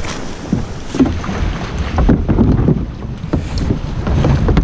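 Shallow river water splashing and sloshing around kayaks in irregular bursts, with wind rumbling on the microphone.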